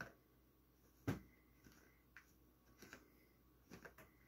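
Faint rustles and soft thumps of a cat pawing at a cotton bedsheet, dragging the fabric over a plate of food as cats do when covering food they reject. There are a handful of scattered scuffs, the loudest a dull thump about a second in.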